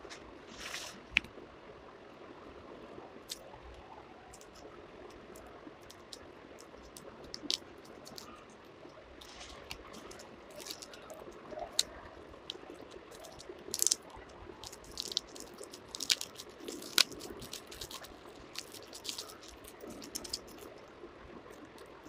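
Scattered soft crunches and crackles with a few sharper snaps from hands handling and breaking a crumbly white chalk-like block.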